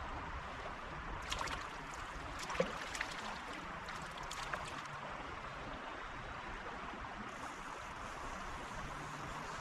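Shallow stream running over stones in a steady rush, with a few light clicks and splashes in the first half.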